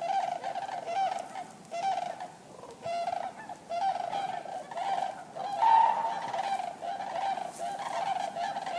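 Several common cranes calling, short honking calls overlapping one another almost without a break. The calls ease off for a moment about two to three seconds in, and the loudest call comes about six seconds in.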